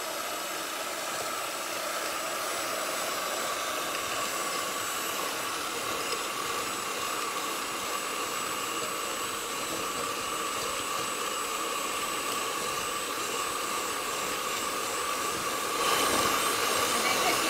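Electric hand mixer running steadily, its motor whining as the twin beaters whip egg yolks with sugar in a ceramic bowl. It gets louder near the end.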